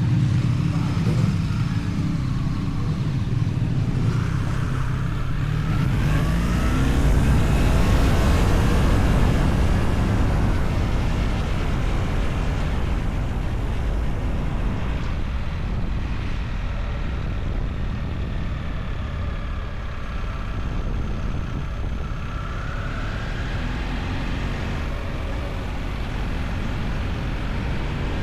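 A vehicle engine running steadily with road and wind noise, its pitch rising and falling as it speeds up and eases off.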